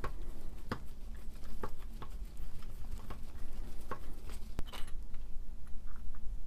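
Scattered light clicks and taps of a hand screwdriver against screws and the plastic motor housing while the bolts holding the field windings are undone, over a low steady hum.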